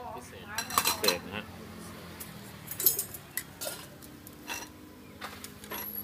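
Metal ladle clinking against a stainless steel soup pot and bowls as broth is ladled out: a series of sharp clinks, the loudest about three seconds in.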